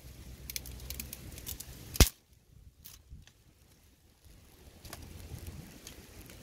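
Dry sticks being handled and snapped by hand: scattered small cracks and clicks, then one loud sharp snap about two seconds in, and another crack near the end.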